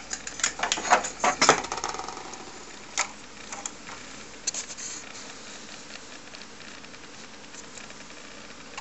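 Handling clicks and knocks of a small circuit board and its ribbon cable connector against the TRS-80 Model I's plastic case: a quick run of sharp clicks in the first two seconds, a few more scattered up to about five seconds in. After that only a faint steady hum remains.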